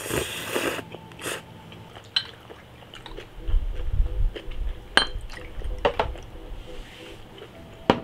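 Noodles slurped off chopsticks, then soju poured from a glass bottle, with several sharp clinks of glass, one of them ringing.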